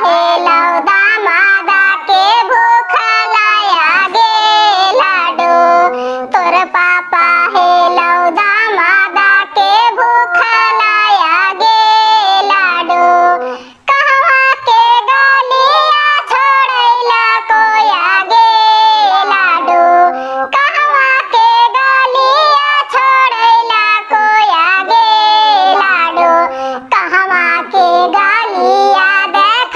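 A high-pitched, pitched-up cartoon voice singing a Bhojpuri bidai geet, the mournful song of a daughter's farewell at her wedding. The singing runs on without a break except for a brief pause about halfway.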